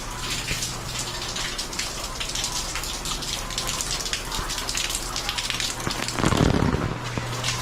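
Heavy rain falling: a steady hiss with a dense patter of drops. About six seconds in, a brief low rumble is the loudest moment.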